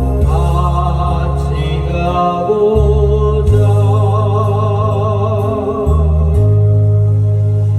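A singer's voice holding long, wavering notes of a Korean song over a backing track with a steady bass line.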